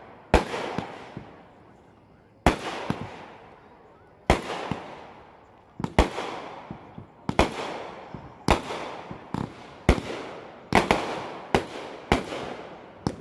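Aerial fireworks launched and bursting overhead: a string of sharp bangs, about one a second at first and coming faster toward the end, each trailing off in a fading rumble and crackle.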